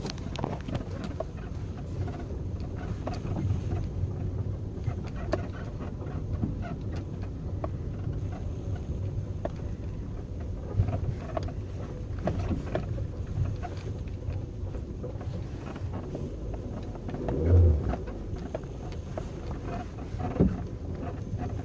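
Creaking, over a steady low rumble with scattered knocks and one louder thump near the end.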